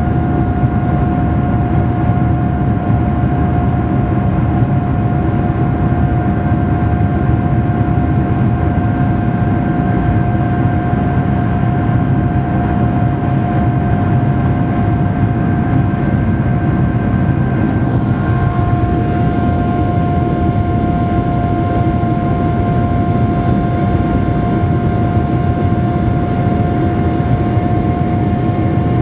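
Boeing 747-400 cabin noise while climbing out after takeoff: a steady deep rush of airflow and engine noise with several steady whining tones on top. About two-thirds of the way through, the whining tones shift slightly in pitch.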